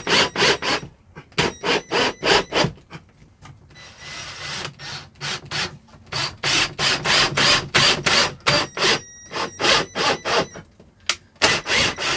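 Cordless drill driving a screw up through a fiberglass ceiling into the timber behind it, in runs of rapid, even clicking at about five a second, with short pauses between runs.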